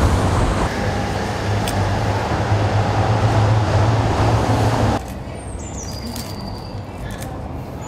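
City street traffic noise with a steady low engine hum, which cuts off abruptly about five seconds in to a quieter street background with birds chirping and a few light clicks.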